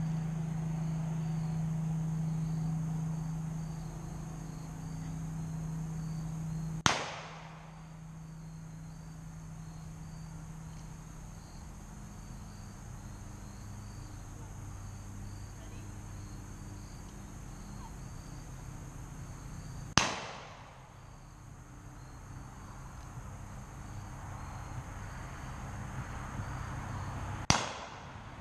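Three single revolver shots fired with black-powder blanks for mounted shooting. Each is a sharp crack with a short echo: one about a quarter of the way in, one about two-thirds through, and one near the end. Steady insect chirping runs underneath.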